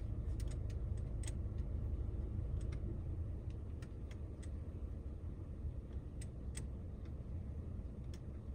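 Small sharp irregular clicks of a metal L key being fitted to and turned in the screws of a dashboard phone-mount base, over a steady low rumble in the car's cabin.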